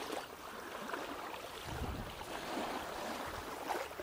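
Small river waves lapping at a sandy shore: an even wash of water with soft, irregular surges.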